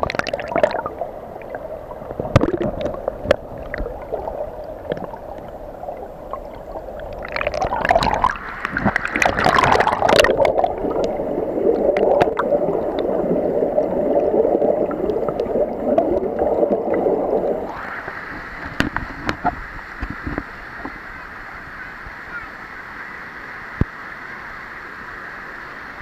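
Rushing waterfall stream heard with the action camera's microphone under the water: muffled gurgling and bubbling, with splashy bursts about eight to ten seconds in. About eighteen seconds in the sound switches suddenly to the steady hiss of the stream running over rock, as the camera comes out of the water.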